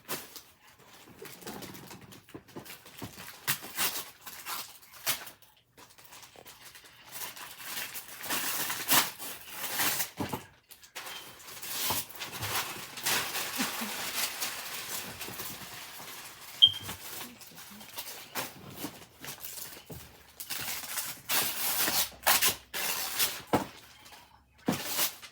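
Paper and packaging being handled during gift unwrapping: irregular crinkling and tearing rustles, with short bursts coming and going.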